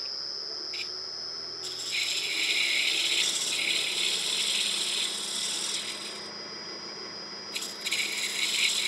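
Wood lathe spinning a small wooden handle while a hand-held turning tool cuts it: a hissing scrape of the tool shaving the wood, in two long passes with a brief touch before them, over the steady sound of the running lathe.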